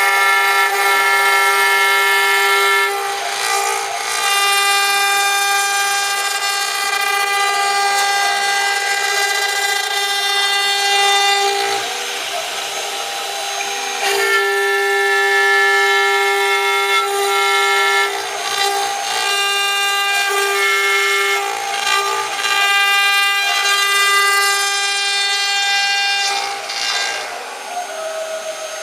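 The 1.5 kW spindle of a JCUT 1212A CNC router engraving letters into a wood board: a steady high whine with the rasp of the cutting bit, its tone shifting several times as it cuts.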